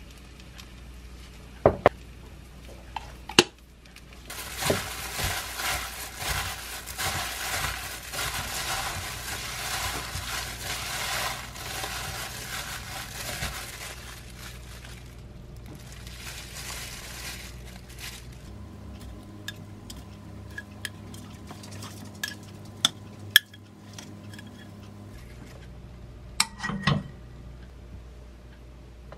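A spoon clicks against a glass mixing bowl as seasoning goes in. Then a gloved hand tosses seasoned chives in the glass bowl, a dense rustle lasting about ten seconds. Later come a few light clicks and a knock as the salad and egg are set on a plate.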